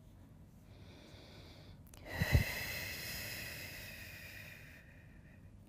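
A woman breathing out during a deep stretch. A faint breath about a second in is followed by a long exhale that starts with a sharp puff around two seconds in and fades away over about three seconds.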